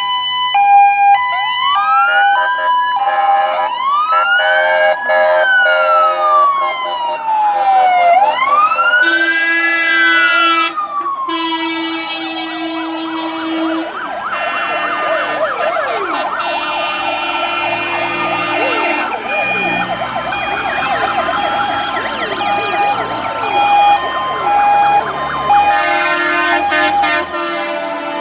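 Sirens of fire engines and a police van passing one after another. A two-tone hi-lo siren gives way to rising and falling wails, and several sirens overlap from about halfway. Heavy truck engines rumble underneath in the second half.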